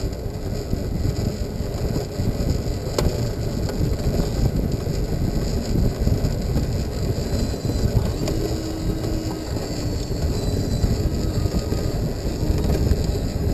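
Wind buffeting the microphone as a steady low rumble, with a single sharp click about three seconds in.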